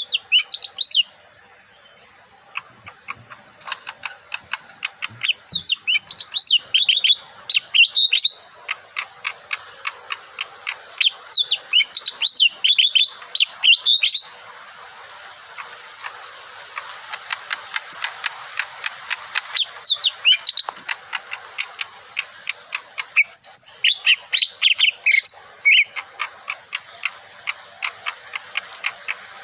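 Lesser green leafbird singing in repeated bursts of quick, bright chirping phrases with pauses between. A steady run of fast clicks continues underneath.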